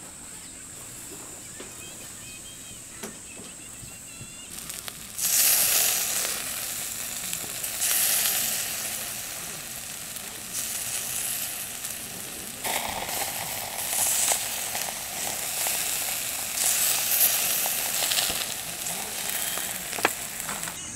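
Tare-basted chicken yakitori skewers sizzling on a wire grill over charcoal. The sizzle comes in loudly about five seconds in, then swells and eases in waves.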